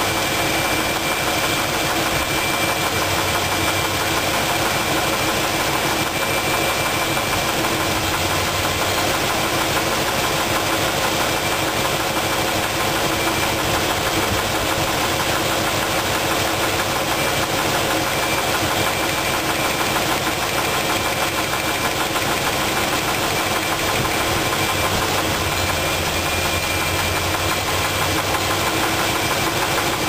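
V8 engine idling with a steady, rapid knock from the number 2 cylinder, the sign of a spun connecting-rod bearing.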